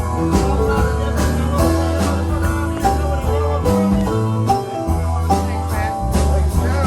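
A band playing, with drum hits on a steady beat under a moving bass line and higher instrument notes, and no singing.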